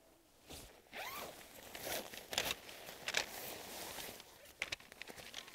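Zip on a nylon tent carry bag being pulled, with the bag's fabric rustling and scraping in a series of short strokes.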